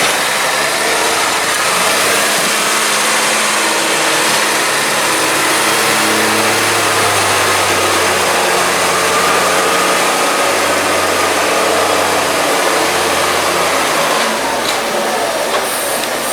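Tractor diesel engine running loudly, its pitch rising and falling as the revs change.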